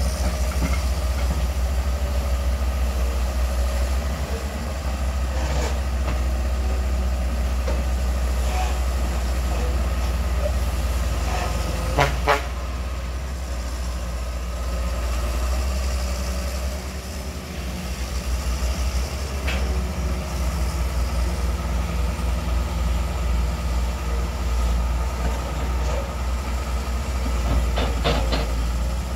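Long-reach excavator's diesel engine running steadily under work, with a few sharp clanks, the loudest about twelve seconds in.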